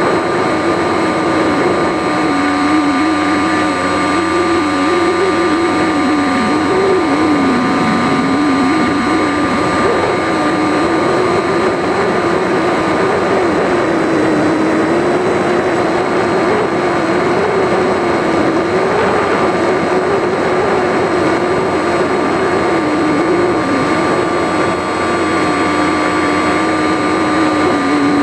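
Electric brushless motor and propeller of a foam RC plane heard from its onboard camera, running steadily as a droning whine whose pitch wavers up and down with throttle, under a constant rush of wind noise.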